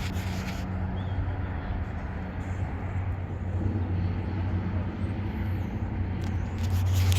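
Steady low mechanical hum, like an idling engine, over outdoor background noise, with a brief burst of rustling noise near the end.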